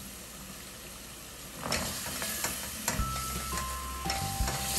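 Onions and spices frying in a cooking pot, sizzling steadily and growing louder a little under two seconds in. Background music with a few held notes comes in about three seconds in.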